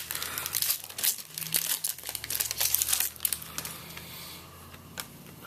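Foil wrapper of a Bowman Chrome baseball card pack being torn open and crinkled, busy for about three seconds, then quieter handling.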